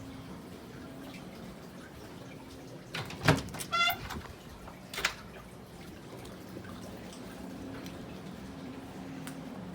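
Quiet room tone with a steady low hum. A couple of knocks come about three seconds in, followed by a brief wavering squeak, and a single click comes about five seconds in.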